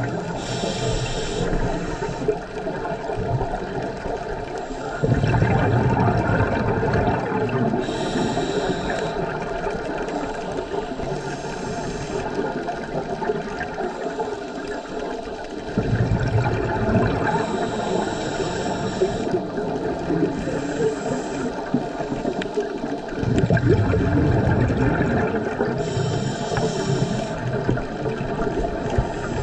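Muffled underwater sound through a camera housing: a scuba diver breathing through a regulator, with a short high hiss on some breaths and three louder stretches of bubbling exhaled air, about five, sixteen and twenty-three seconds in.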